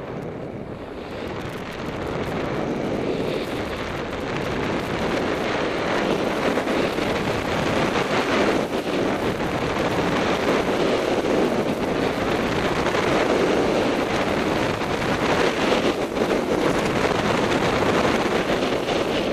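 Wind rushing over a helmet camera's microphone during a fast snowboard descent, mixed with the board sliding over snow. It builds over the first several seconds as speed picks up, then stays steady and loud.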